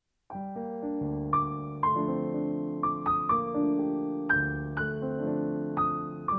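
Background piano music: a gentle melody of single notes over held chords, each note struck and left to ring and fade, starting just after the beginning.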